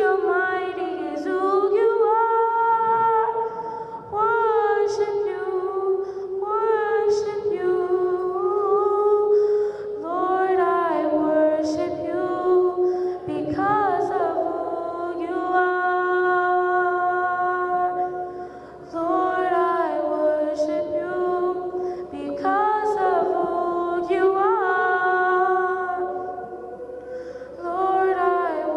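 A child singing a sacred solo into a microphone, long held notes sung in phrases with short breaths between them.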